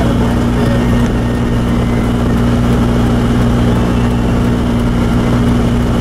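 Steady in-cabin drone of a 1990 Toyota 4Runner being driven on a snowy road: engine and tyre noise mixed with the heater blower running on high, under a constant low hum.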